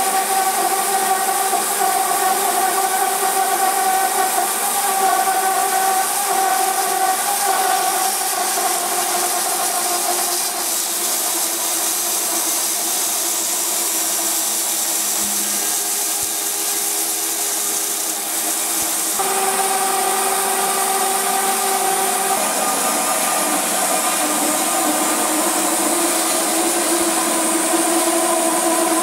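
Band saw running and cutting through a large-diameter black plastic pipe: a steady whine of several held tones over a hiss, with the tones shifting abruptly about two-thirds of the way through.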